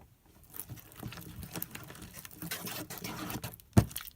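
Sticky homemade slime being squished and kneaded by hand as laundry detergent is worked in, a dense run of small wet crackles and squelches. One sharp thump near the end.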